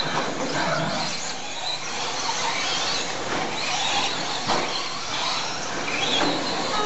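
Electric radio-controlled Traxxas Slash 2WD short-course trucks racing on a dirt track: a steady noise of small motors and tyres on loose dirt.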